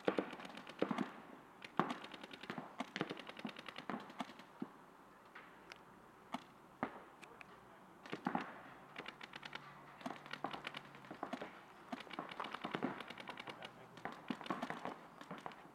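Paintball markers firing rapid strings of shots, many shots a second, some close and some farther off, with short pauses between strings.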